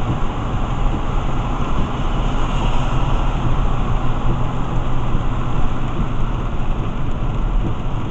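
Steady road noise inside a moving car's cabin on a rain-soaked freeway: tyres hissing on wet pavement and rain on the car, over a low, even engine hum.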